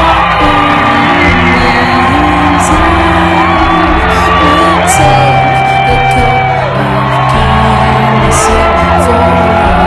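Music with a singing voice, over a large crowd whooping and cheering.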